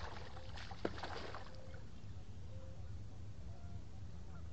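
A hooked fish splashing and thrashing at the water's surface during the first second and a half, with one sharp slap just under a second in. Faint short honks repeat throughout, like distant geese.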